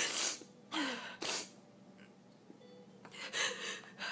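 A woman's audible breaths between sentences: three quick, sharp intakes of air in the first second and a half, and another longer breath about three seconds in.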